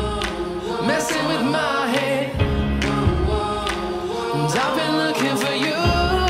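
Background song: a voice singing over instrumental accompaniment.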